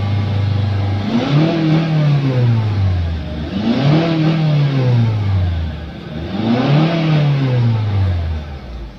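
Honda CR-V engine, treated for valve lifter noise, idling and then revved three times. Each rev rises quickly and falls back more slowly to idle.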